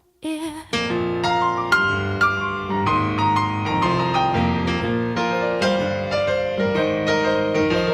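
Piano playing an instrumental break of busy, rapidly struck notes and chords, coming in about a second in right after a brief pause and the tail of a sung word.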